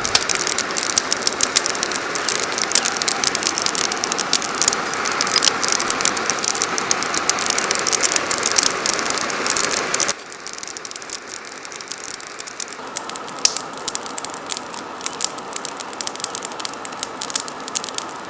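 Forge wood fire crackling with many sharp pops over the steady rush of air blown into it by a fan. About ten seconds in the rushing drops suddenly to a quieter level, while the crackling goes on.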